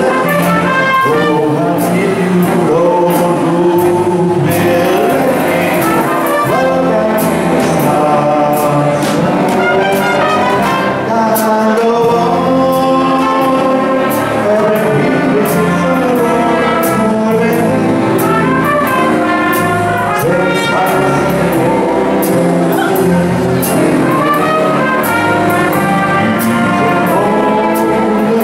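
Live big band music: a brass section of trumpets and trombones playing over a drum kit with regular cymbal strokes, backed by saxophones, guitar and keyboards.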